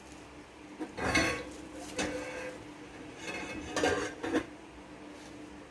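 Metal cutlery clinking and scraping against cookware in several short clatters about a second apart, as roasted garlic is moved and set aside.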